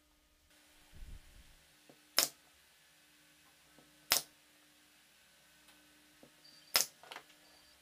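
Nail gun firing into wooden strips to join the frame: three loud, sharp snaps about two seconds apart, the last followed closely by a fainter one. A soft low thud of wood being handled comes about a second in.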